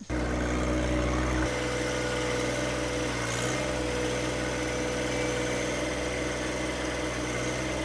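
A John Deere 1025R compact tractor's three-cylinder diesel engine runs steadily while its front loader bucket dumps topsoil. The low part of the engine note shifts slightly about a second and a half in.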